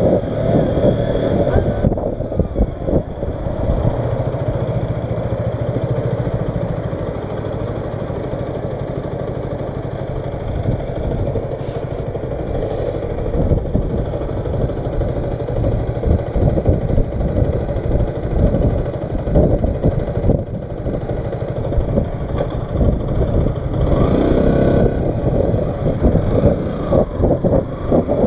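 Wind buffeting the microphone over a 125cc motorcycle engine running at low speed, with gusts coming and going.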